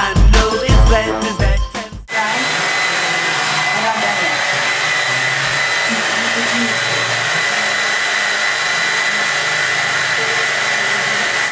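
Music with a heavy beat for about two seconds, then a hand-held hair dryer blowing steadily, with a high whine over its rush of air.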